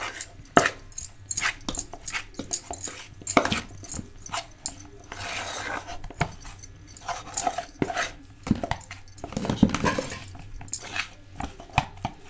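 A metal spoon scraping and knocking against a steel bowl while stiff, crumbly milk-and-flour dough is worked, in quick irregular strokes.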